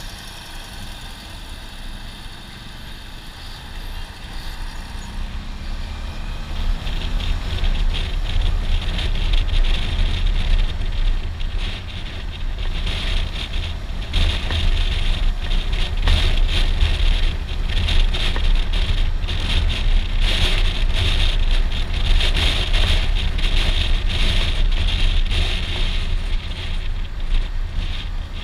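Suzuki V-Strom 650 XT's V-twin engine pulling away from slow traffic, its pitch rising. About six seconds in, loud wind buffeting on the microphone takes over as the motorcycle picks up speed, and it stays loud to the end.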